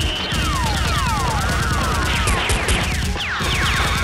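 Dubbed automatic-gunfire sound effects: a rapid, unbroken stream of shots, overlaid with whizzing bullet sounds that sweep down in pitch.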